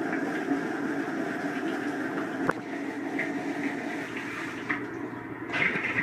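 Dishwasher running its wash cycle, heard from inside the tub: a steady rush of spraying water, with a single sharp knock about two and a half seconds in.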